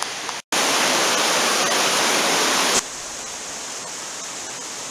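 Creek water rushing over rocks, a steady hiss. It cuts out for an instant about half a second in, comes back louder, then drops to a softer level a little before halfway.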